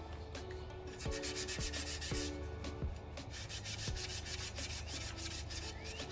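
Rapid back-and-forth scrubbing of rusty bike metal by hand, the strokes fastest and densest for a couple of seconds after the first second.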